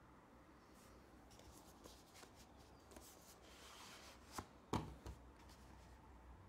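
Hands handling a cardboard Blu-ray slipbox, faint rubbing and sliding of card as the inner case is drawn out. Two sharp taps come a little after four seconds in, the second the louder.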